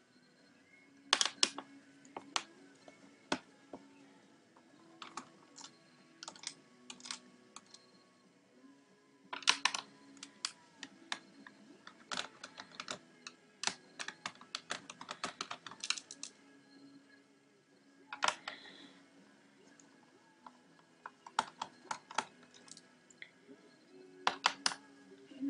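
Irregular clusters of sharp clicks and light taps: a small screwdriver working screws out of an HP G61 laptop's case, with the loose screws being handled and set down.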